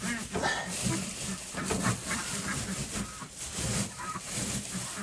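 Ducks giving short, repeated quacks while a hand digs and rustles through nest straw.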